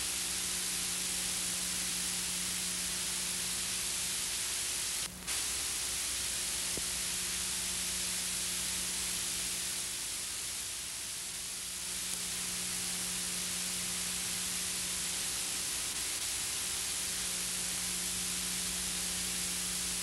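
Steady hiss and static with a faint low hum under it, the noise floor of an old 16mm film soundtrack transferred to video. It drops out for a moment about five seconds in.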